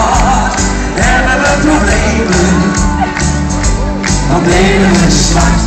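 Live Dutch-language pop duet played loud through a big outdoor PA, with strong bass, a singer's voice and shouts over the band, and a crowd cheering along.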